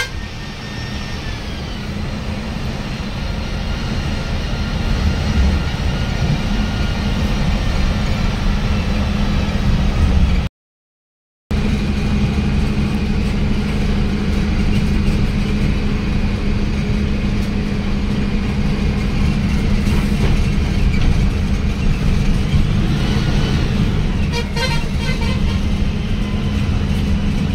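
Sleeper coach's engine and tyre noise heard from inside the driver's cabin while driving at speed: a steady, loud drone with a low hum. About ten seconds in it drops out to silence for a second. A horn sounds briefly near the end.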